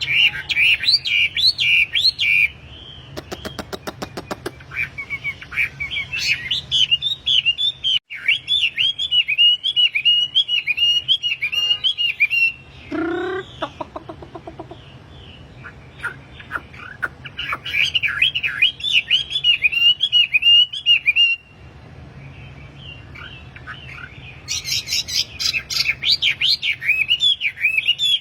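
Wambi songbird in full song, giving fast chirping runs of repeated, wavering notes in several spells with short breaks between them. A quick run of clicks comes about three seconds in.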